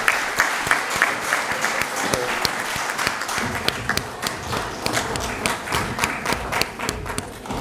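Audience applauding. The dense clapping thins to scattered individual claps and fades toward the end.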